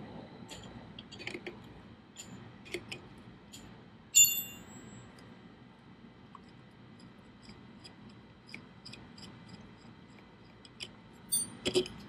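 Small clicks and scrapes of a wrench and hands working the old horn's mounting bolt loose on a Yamaha WR250R, with one sharp, briefly ringing metal clink about four seconds in and a few louder clicks near the end.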